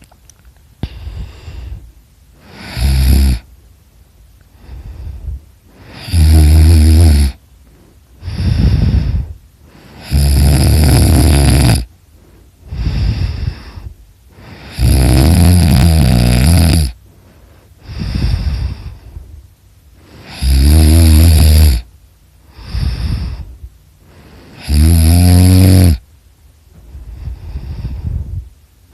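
A person snoring heavily: six loud, rasping snores about four to five seconds apart, each lasting one to two seconds, with shorter, quieter breaths between them.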